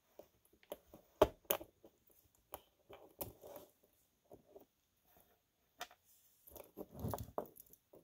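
Small metallic clicks and taps as a spring bar tool works a spring bar out of a steel watch bracelet to free the clasp, with the links clinking. One sharp click comes about a second in, and duller handling noise comes near the end.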